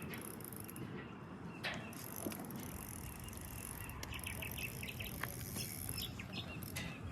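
Outdoor ambience of a steady low rumble and a high hiss, with a few single clicks and a short run of quick ticks about four seconds in.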